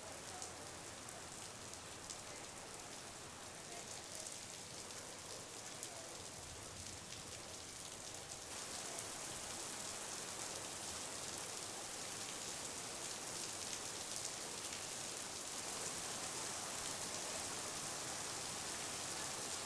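Steady rain falling, an even hiss that grows a little heavier about halfway through.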